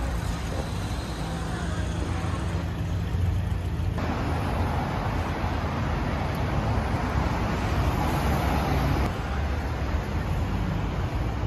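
Road traffic on a busy city street: cars, vans and buses running past, a steady rumble of engines and tyres that grows fuller from about four seconds in.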